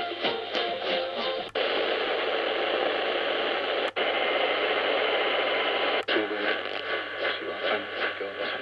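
Medium-wave AM reception from a Qodosen SR-286 portable radio's loudspeaker while it is tuned up the band. Station audio gives way to a steady static hiss, which cuts out for an instant three times as the tuning steps from channel to channel. Near the end another station's programme comes through the noise.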